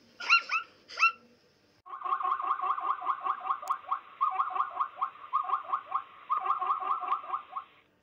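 Plains zebra calling: two short yelps, then from about two seconds in a rapid string of yelping barks, several a second, in bursts.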